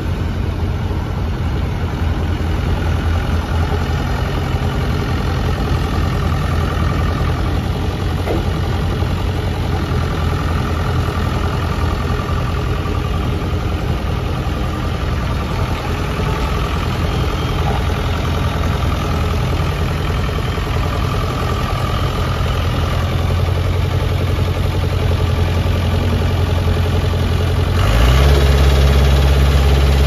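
Case 580 Super E backhoe's 70 hp Cummins four-cylinder diesel idling steadily. It grows louder near the end.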